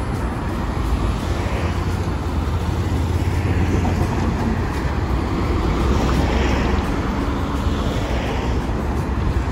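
Hiroden Green Mover LEX low-floor tram rolling slowly through a curved junction, heard against steady street traffic with a low rumble.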